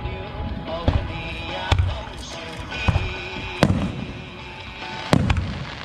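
Aerial firework shells bursting overhead: about six sharp booms, roughly a second apart and two close together near the end, with music playing underneath.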